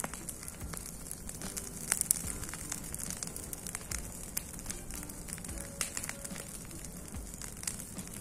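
Bonfire of cut branches and old boards burning and crackling, with irregular snaps and pops; the sharpest pops come about two seconds in.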